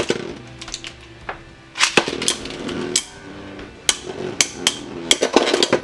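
Two Beyblade Burst spinning tops, Valkyrie Wing Excel and Spriggan Spread Fusion, battle in a clear plastic stadium. They spin with a steady whirr, and from about two seconds in they clack sharply against each other and the stadium walls, a dozen or so times.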